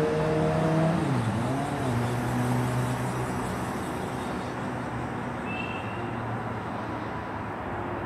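A motor vehicle's engine passing by on the road, its pitch dropping about a second in, then fading away into steady traffic noise.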